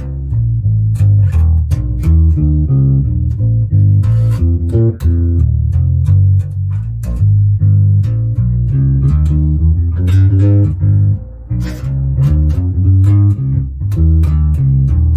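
Ibanez Mikro short-scale electric bass played in a busy funk groove, a quick run of plucked notes with sharp, clicky attacks and a short lull about two-thirds of the way through.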